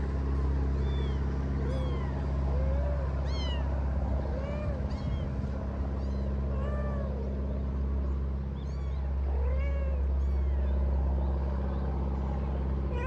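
Cats meowing over and over, short mews that rise and fall, about one a second, some high and thin like a kitten's and some lower. A steady low mechanical hum runs underneath.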